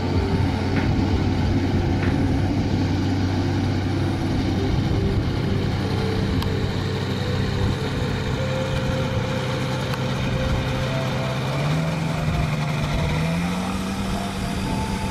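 Piston engine and propeller of a single-engine high-wing light plane running at takeoff power through its takeoff roll and lift-off. The engine note steps up in pitch twice near the end.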